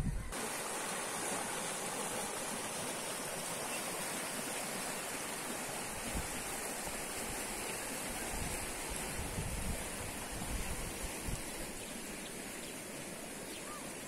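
Steady rushing of river water flowing in the eroded bed of the Cihanda river.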